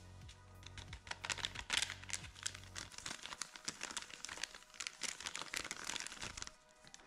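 Agar-agar powder sachets crinkling as they are squeezed and shaken to empty the powder into a bowl. The crackling is dense from about a second in and stops shortly before the end.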